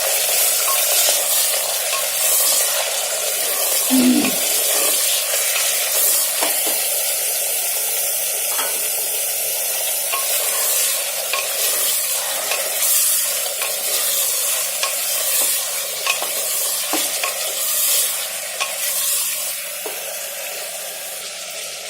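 Chunks of meat frying in hot oil with onions in a pressure cooker pot: a steady sizzle, with a spoon scraping and stirring against the pot every second or so.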